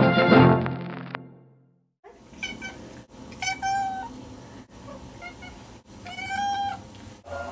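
Brass-band music fades out in the first second and a half. A pet cat then makes a series of four odd, pitched meow-like calls, two short and two drawn out.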